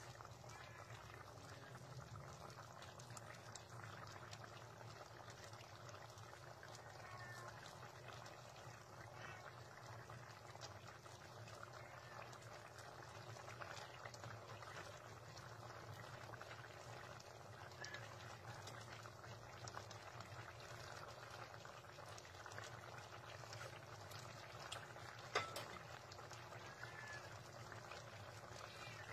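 Squid stew in coconut milk simmering in a pot: faint, steady bubbling and popping. One sharp click comes near the end.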